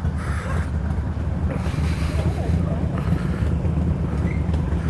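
Motorcycle engine idling with a steady low rumble, with faint voices behind it.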